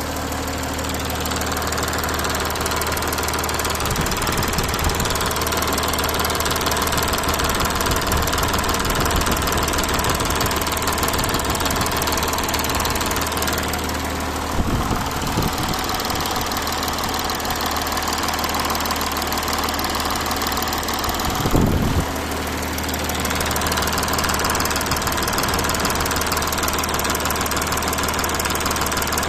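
Audi A6 (4G) engine running steadily at idle, with two short surges, about halfway and about three-quarters through.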